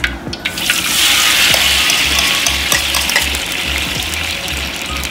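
Ground chili sambal paste dropping into hot oil in an aluminium wok: a loud sizzle that starts about half a second in and slowly dies down, with a metal spoon scraping and clicking against the wok as the paste is stirred.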